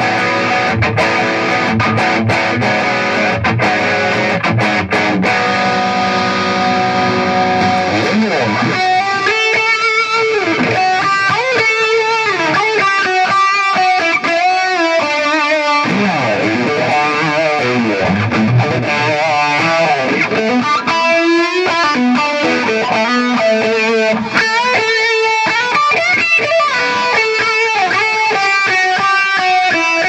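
Gibson Les Paul Traditional Pro electric guitar played through a Mesa/Boogie Triaxis preamp and 20/20 power amp into a Rectifier cabinet, with rack effects on. Strummed chords for about the first eight seconds, then single-note lead lines with bends and vibrato.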